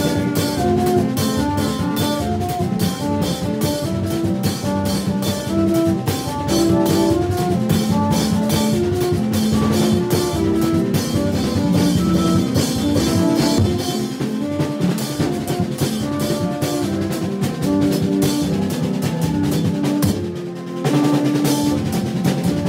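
A live drum band playing a fast, busy rhythm on hand drums and mallet-struck drums, with a melody of short, steady notes over it. The sound briefly dips about twenty seconds in, then the band carries on.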